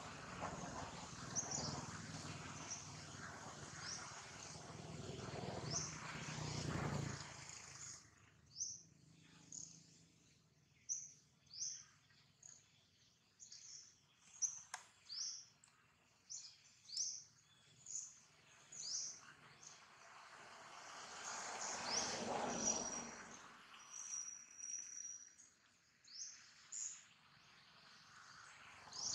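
Small birds chirping, short high notes about once a second, with one longer held note near the end. A broad rushing background noise swells over the first several seconds and again about two-thirds of the way in.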